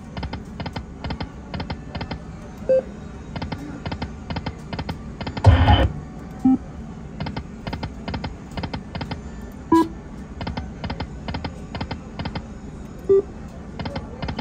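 Lightning Link Moon Race slot machine's sound effects: a run of short clicks, about three a second, as the reels spin and stop, with a few short beeps. One louder burst comes about five and a half seconds in.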